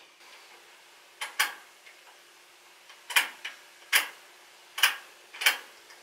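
Ignition key switch of a 1980 Honda CB650 bobber being clicked on and off again and again: sharp dry clicks, some in quick pairs, every second or so, with nothing answering them because the newly wired bike gets no power.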